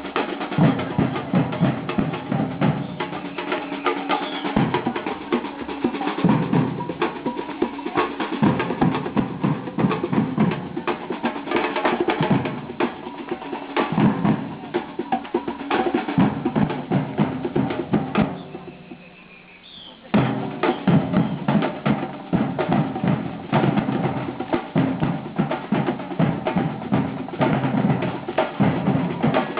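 Drums and percussion playing a busy, steady rhythm. The drumming drops away briefly about two-thirds through, then comes back in all at once.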